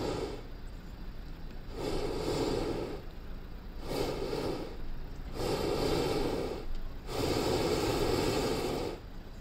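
Hot-air balloon's propane burner firing in repeated blasts with short gaps between them: one blast ends just at the start, then four more follow, each a second or two long, the last and longest ending near the end.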